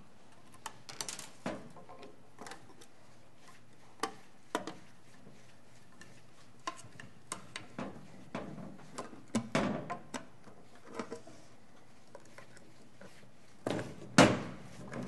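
Screwdrivers working at screws in a metal instrument case on a steel workbench: scattered light metallic clicks, scrapes and tool clatter, with a louder knock near the end.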